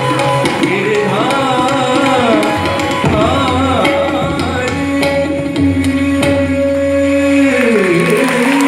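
Indian classical dance music: a singer's voice with tabla accompaniment over long held instrumental notes.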